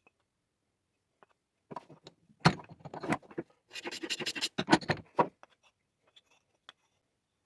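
Hand plane strokes shaving a timber block to true an out-of-square face, with knocks as the plane and the wood are handled. The strokes start a couple of seconds in and are densest in the middle, followed by a few light clicks.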